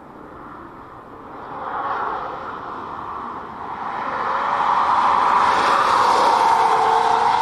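Tyre roar of a Kia EV9 electric SUV on track with no engine note, growing steadily from faint to loud as the car approaches.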